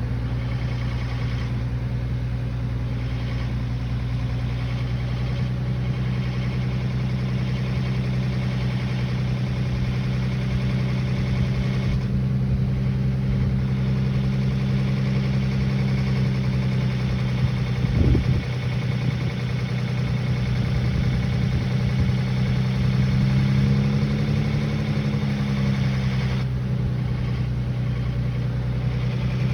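Nissan VQ35HR 3.5-litre V6 running steadily at about 1100–1200 rpm, the speed at which it makes a ticking noise. A brief loud thump comes a little past halfway, and the revs rise slightly and settle back near the end.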